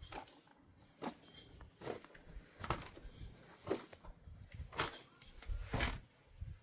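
Walking footsteps, about one step a second, each a short scuff or crunch.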